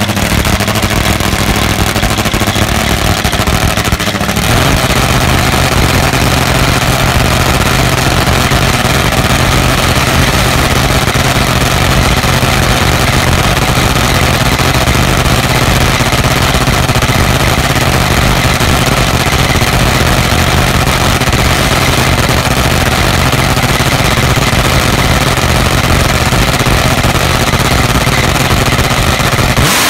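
Top Fuel nitromethane drag bike engine idling. About four and a half seconds in, it steps up to a louder, higher idle that then holds steady. This is the high idle, switched on too soon before pre-staging.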